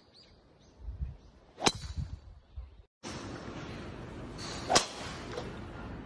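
Two golf driver shots: each time the clubhead strikes a teed golf ball with one sharp crack, the first about two seconds in and the second, louder one about five seconds in. A steady background hiss starts about three seconds in and runs under the second shot.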